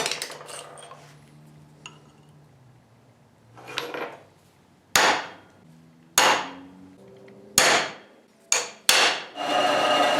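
Five sharp strikes on metal, hammer blows on steel, each fading over about half a second. Near the end a power tool starts up and runs steadily.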